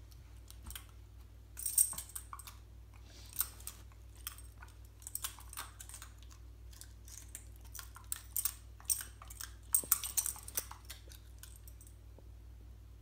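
Metal dog tags on a German Shepherd's collar clicking and jingling as she chews them in her mouth: irregular clusters of sharp metallic clicks, busiest around two seconds in and again around ten seconds.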